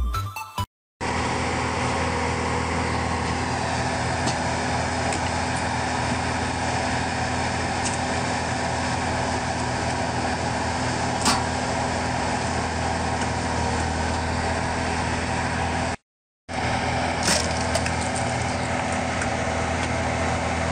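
Skid-steer loader's diesel engine running steadily, driving a hydraulic log splitter attachment, with a few sharp cracks of wood splitting.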